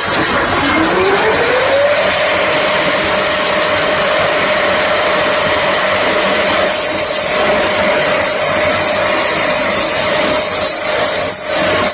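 Wickman six-spindle automatic lathe running, a loud, even mechanical din. A whine climbs in pitch over the first two seconds, then holds steady, and short bursts of higher hiss come twice near the end.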